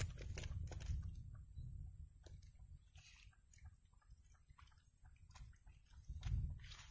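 Faint scattered clicks and rustles of hands handling a fishing hook and bait, over a low rumble that is strongest at the start and swells again near the end.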